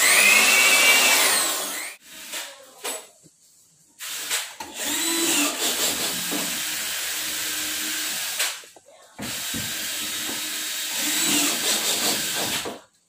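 Cordless drill driving screws into a modular cabinet, run in three bursts: a short one of about two seconds, then two longer runs of about four seconds each. Each burst speeds up with a rising whine.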